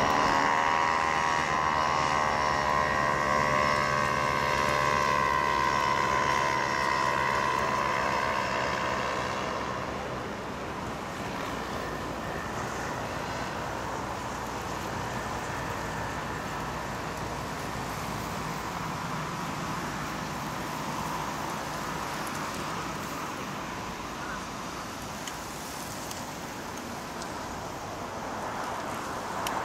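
Small propeller engine of a powered paraglider droning overhead, a steady pitched hum that fades out after about ten seconds. Steady traffic and wind noise remains after it.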